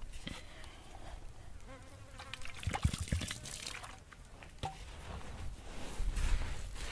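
Hands scraping and scooping loose, dry soil, with small gritty clicks and a louder patch of scraping about three seconds in. Near the end a bare foot treads the dirt with dull thuds. A fly buzzes at times.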